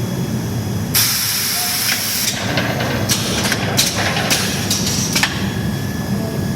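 Gang-saw blade segment welding machine running with a steady hum. About a second in comes a loud hiss lasting just over a second, then a string of short hisses.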